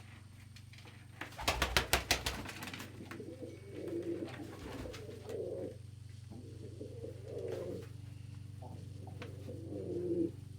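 Domestic pigeons cooing: several low, rounded coos a second or two apart. Before them, about a second and a half in, comes a short run of sharp clattering sounds.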